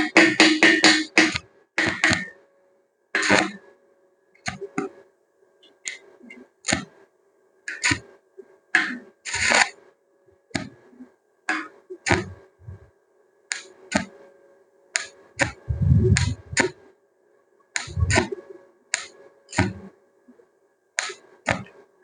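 Irregular sharp knocks and taps, as of tools striking or handling hard material: a quick run of rapid strikes at the start, then single knocks every half second to a second, a few of them heavier and thudding.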